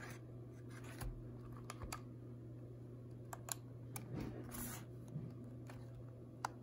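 Scattered light clicks and taps of fingers handling a camcorder and pressing its buttons and power switch, with a brief rustle about halfway through. A low steady hum runs underneath.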